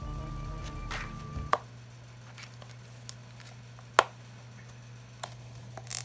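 Background music with held tones stops about a second and a half in. After it come a few sharp clicks and taps of handling, the loudest about four seconds in, over a steady low hum.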